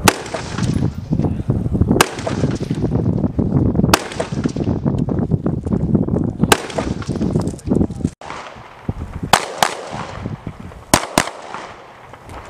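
Rifle shots fired singly, four shots about two seconds apart. After an abrupt cut, pistol shots follow in two quick pairs.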